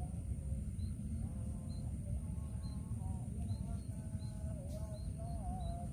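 Outdoor ambience: a steady low rumble, with a small bird repeating a short high chirp about twice a second and a faint wavering tone underneath.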